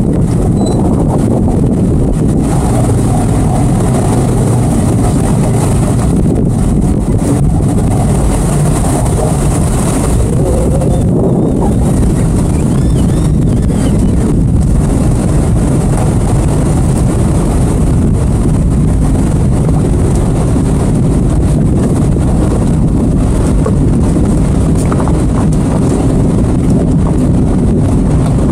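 Twin outboard engines of a towboat running steadily with the boat under way, mixed with wind rumbling on the microphone.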